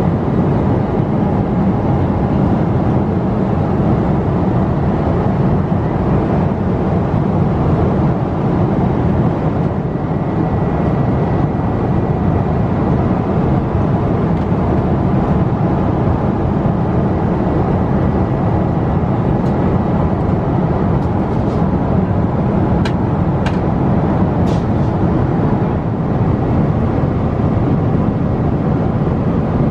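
Steady airliner cabin noise inside a Boeing 777 in flight: an even low rush of engines and airflow. A few faint light clicks come past the middle.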